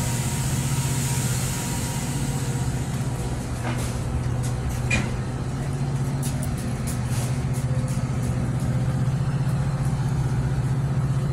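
Metra commuter train's diesel locomotive running steadily while the train stands at the platform: a constant low drone, with a few light clicks and a short chirp about five seconds in.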